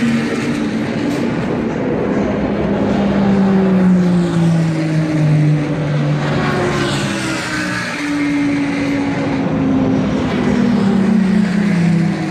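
Endurance race cars passing at speed one after another, about five in all. Each engine note falls in pitch as the car goes by.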